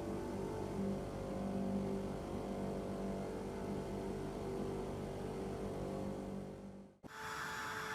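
Electric motor of a workshop power tool running steadily with a droning hum. It fades out about seven seconds in, and right after that a different, higher steady hum starts abruptly.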